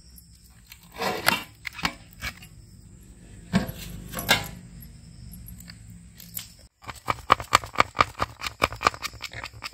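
Metal scraping and a couple of clanks as an aluminium lid is pried free of its dough seal and lifted off a cake pan. Later, a quick run of small clicks and scrapes as a knife cuts around the edge of the baked cake on a metal plate.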